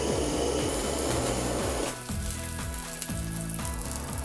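Handheld gas torch burner hissing as its flame sears olive-oil-coated cauliflower slices in a metal tray. The flame is shut off suddenly about two seconds in, leaving a faint crackle of the hot oil sizzling.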